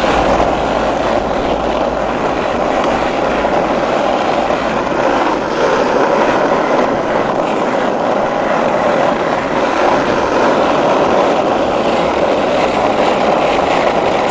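Skateboard wheels rolling over rough asphalt street: a steady, loud rumble.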